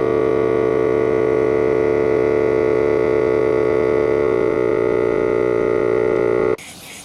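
Small Milwaukee air compressor running steadily while pumping up a tractor tire, a constant whine that stops suddenly near the end.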